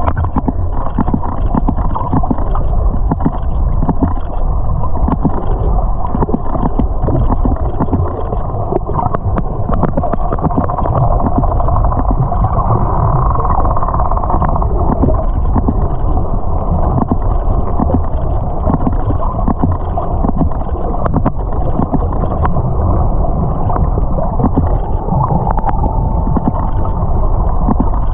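Underwater recording of a pod of wild dolphins: a steady low rush of water noise with many faint, sharp dolphin clicks scattered through it, and a brief higher tone near the middle and again near the end.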